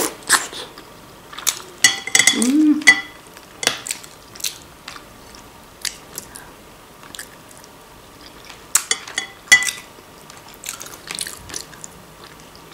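Close-up eating sounds: chewing of stuffed bell pepper with wet mouth clicks and smacks, and scattered sharp taps of a metal fork on a glass plate, the loudest clusters about two seconds in and again about nine seconds in.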